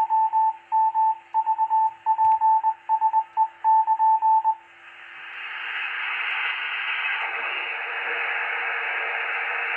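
Morse code (CW) heard through an amateur radio receiver: one steady beep keyed on and off in dots and dashes, stopping about four and a half seconds in. After that the receiver's static hiss rises and holds.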